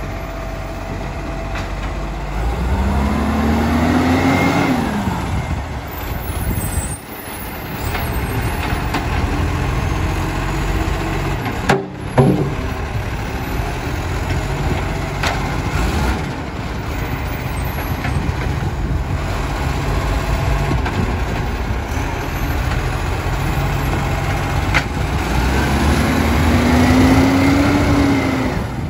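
Iveco Acco side-loader garbage truck's diesel engine running as it pulls up and moves off, its pitch rising and falling near the start and rising again near the end as it speeds up. A brief sharp sound about twelve seconds in, while the truck is stopped.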